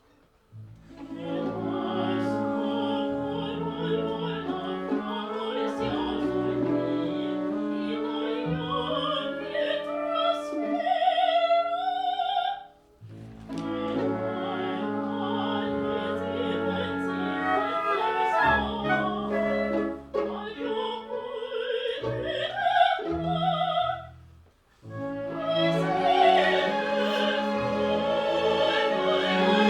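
Orchestral music with operatic singing, the singer's vibrato wavering over strings. It comes as three excerpts, each cut off by a brief silence, about a third and two-thirds of the way through.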